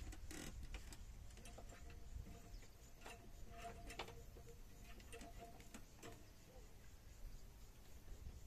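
Quiet outdoor ambience: a low rumble with a few faint clicks, and a faint steady hum for a few seconds in the middle.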